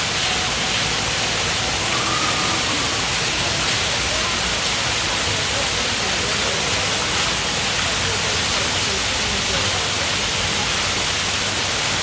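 Steady rushing noise, like running water, unchanging throughout, with faint distant voices now and then.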